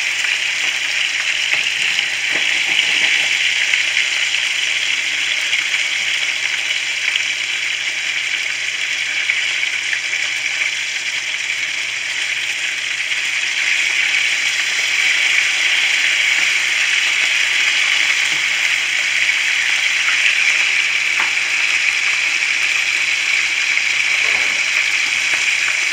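Cheese-filled masa enchiladas potosinas shallow-frying in olive oil in a frying pan, a steady sizzle.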